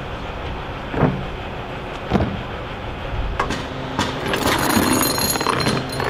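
A crane's engine runs with a steady low hum, with two knocks at about 1 and 2 seconds. From about four seconds in, loose stainless-steel rigging wires and turnbuckles clink and rattle against the mast as it is lifted out.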